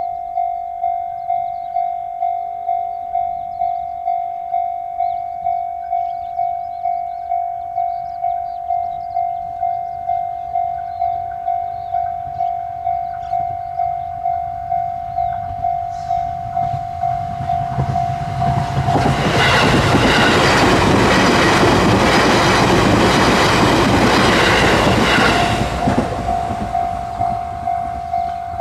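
Japanese level-crossing electronic warning bell sounding one pulsed tone over and over in a fast, even rhythm. About two-thirds of the way in, a train's wheel and track noise swells up, runs loud for about seven seconds and drowns the bell, then cuts off sharply so the bell is heard alone again.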